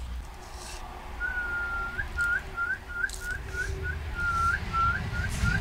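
A person whistling a pigeon keeper's feeding call. There is a long note that flicks up at its end, then a run of short rising chirps about three a second, then a second long note and more chirps.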